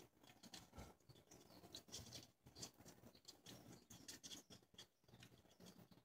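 Faint scratching and irregular small clicks of fingers turning a loosened oil pan drain plug out by hand.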